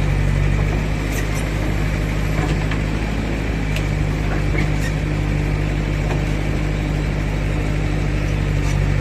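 JCB 3DX backhoe loader's diesel engine running steadily at a constant speed, with a few faint clicks over it.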